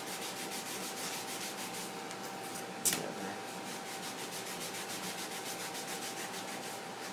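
A rag wetted with rubbing alcohol rubbed briskly back and forth over the smart film's plastic, cleaning one side, in a fast, even run of scrubbing strokes. One sharp click about three seconds in.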